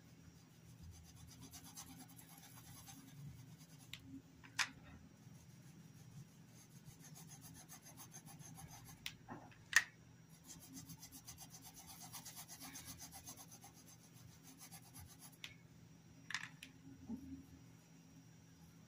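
Faint scratchy rubbing of a paintbrush's bristles over dish-towel cloth as fabric paint is brushed on in quick, repeated short strokes. A few sharp clicks break in, the loudest just before ten seconds in, where the brush knocks against the plastic paint palette as it is reloaded.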